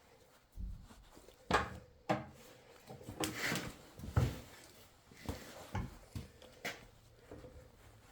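Hand assembly of an air brake hose end repair fitting: brass and plastic parts and a hex key being handled, giving a scattering of sharp clicks and knocks with some rubbing in between.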